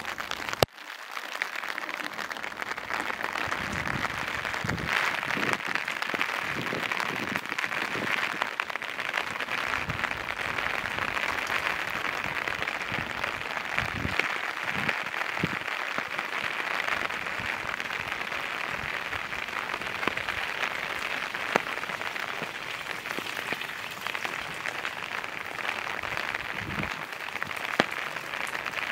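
Steady rain falling, an even hiss with scattered heavier drops and small thuds. A single sharp click comes just under a second in.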